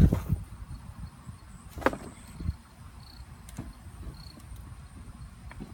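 A long wooden pole knocking against a plastic toy ride-on vehicle: a heavy thump at the start, a sharp knock about two seconds in and a softer thump just after. Crickets buzz steadily and faintly underneath.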